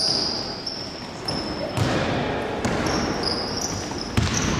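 Basketball play on a gym floor: sneakers squeaking in short, high squeals and the ball bouncing, with a sharp bounce about four seconds in that is the loudest sound.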